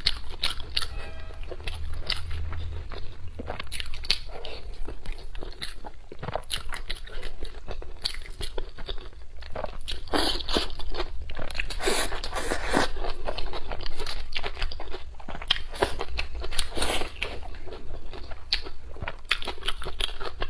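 A person chewing and biting braised potato and pig trotter close to a clip-on microphone: wet mouth smacks and many short, sharp, irregular clicks, with louder bites about ten seconds in.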